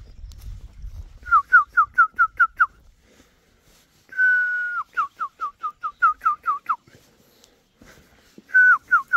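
A person whistling a call to summon chickens: three runs of quick falling notes, the second and third each opening with a held note.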